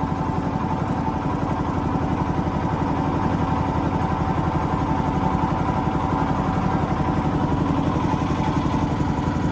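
Boat motor running steadily, with a fast, even engine chug.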